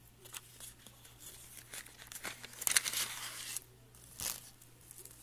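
Packaging being handled: a cardboard box flap opened, then a clear plastic bag crinkling as LED strips and their wires are pulled out. The rustling is loudest from about two to three and a half seconds in, with a few light clicks.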